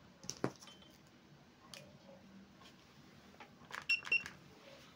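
Hioki IR4057 insulation tester giving two short high beeps about four seconds in as its test key is pressed to apply 1000 V DC to the pliers' handle. A sharp click about half a second in and a few fainter clicks come before it.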